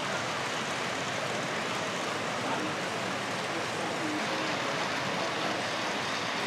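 Steady hubbub of a crowd talking, blurred into an even wash of noise with no single voice standing out.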